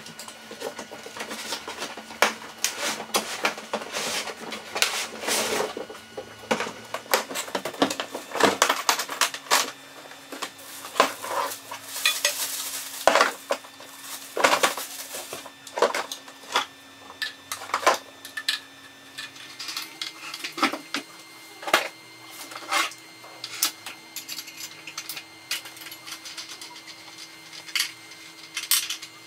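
Unpacking a new angle grinder: a string of irregular clicks, knocks and clatters as a hard plastic carry case is opened and the grinder handled, with a spell of plastic-bag rustling about twelve seconds in.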